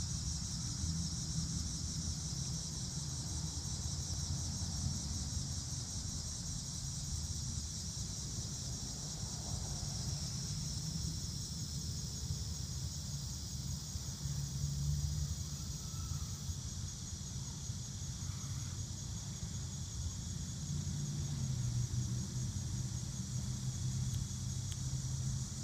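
Steady, high-pitched insect chorus over a constant low rumble.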